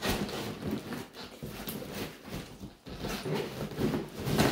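Cardboard scraping and rubbing as a long inner box is slid and lifted out of a cardboard shipping carton, with irregular scuffs and rustles.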